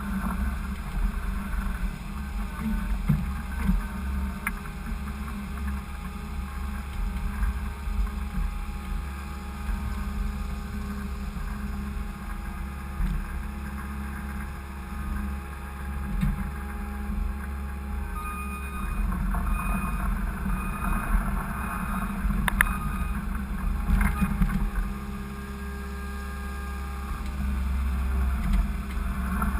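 Skid steer engine running steadily, working a box snow pusher, with a short series of high beeps about two thirds of the way through.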